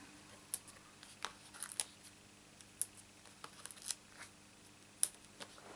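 Light paper rustles and scattered small clicks as foam adhesive dimensionals are peeled off their backing sheet and pressed onto a card-stock oval. About half a dozen sharp ticks, the loudest about five seconds in.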